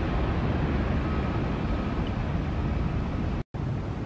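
Jet engines of a Boeing 737 rolling along a wet runway: a steady deep rumble with a hiss over it and a faint high whine in the first half. The sound cuts out for an instant near the end and resumes slightly quieter.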